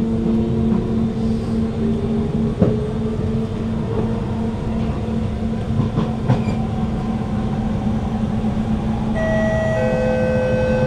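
Kawasaki C151 metro train heard inside a motor car: the GTO-VVVF inverter and traction motors whine over a steady rumble of wheels on rail, with rising tones as the train picks up speed in the first few seconds. There is a sharp knock a few seconds in, and near the end a new set of steady tones at several pitches comes in.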